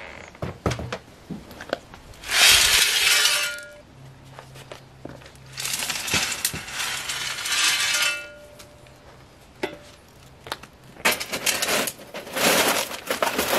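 Small white decorative pebbles clattering and rattling as they are spread over a garden bed, in three loud spells of a second or two each, with scattered knocks of stone between.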